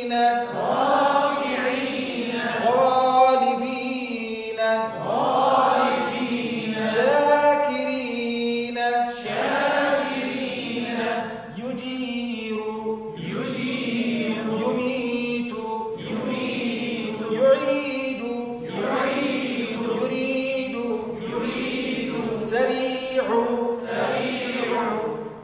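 Voices reciting a list of Arabic words in a drawn-out, chanted Quranic recitation style, about one word every two seconds, holding the long vowels as a tajweed drill.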